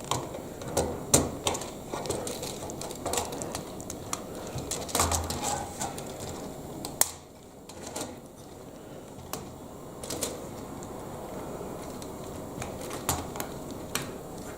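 Small plastic Lego Technic parts clicking and clattering as they are handled and pressed together: irregular sharp clicks, busier in the first half.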